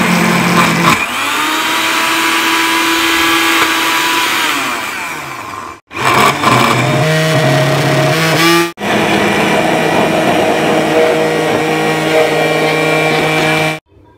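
Countertop electric blender running, churning a thick mixture of frozen banana, milk and ice. Its motor hum drops in pitch about a second in and sinks further as it slows around five seconds in. It breaks off twice, starts again each time, and stops abruptly just before the end.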